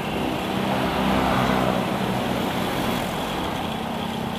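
A Bajaj CT100's small single-cylinder four-stroke engine running steadily under way, with wind and road noise rushing past.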